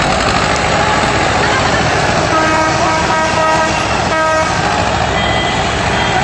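Tractor engine running close by. About two seconds in, a horn sounds on one steady pitch for about two seconds, with a brief break near the end.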